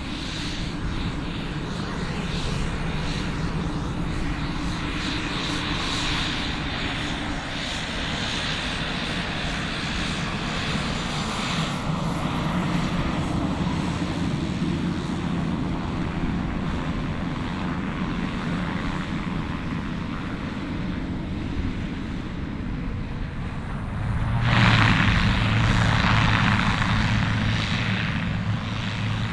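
Single-engine turboprop of a Pilatus PC-12 NG running at low taxi power, a steady propeller drone. About 25 seconds in the power comes up sharply into a much louder, fuller propeller roar, as for the takeoff roll.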